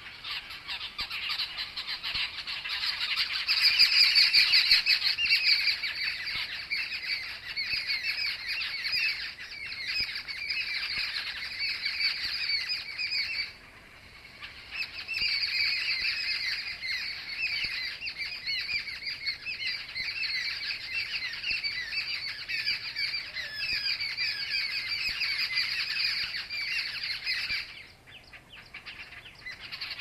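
A flock of jungle babblers giving harsh, chaotic squawking distress calls all together as a continuous chatter. The calls break off for about a second roughly halfway through and thin out near the end.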